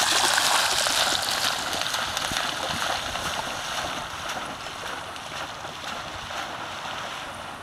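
A dog bounding into shallow water and splashing, loudest at the start, the splashing fading away as it swims off across the lake.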